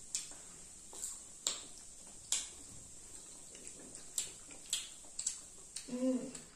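Children chewing popcorn and French fries close to the microphone: sharp mouth clicks and smacks, about one a second, with a short voiced sound near the end.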